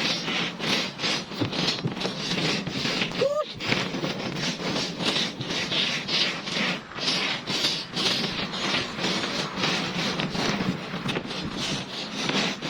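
Rhythmic rasping strokes of a hand tool worked back and forth, about three a second, with a brief rising squeak about three seconds in.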